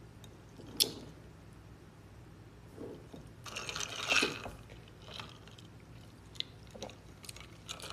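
Highball on ice being sipped through a straw: a slurp about three and a half seconds in, with a few light clicks from the glass and ice.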